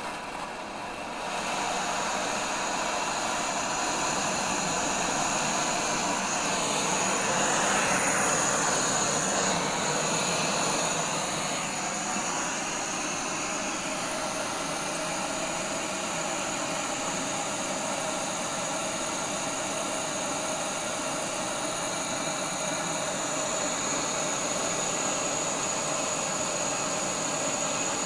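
Gas blowtorch burning with a steady hissing flame, growing louder about two seconds in and swelling briefly in the middle, as it heats a steel bar in a vise to an orange glow.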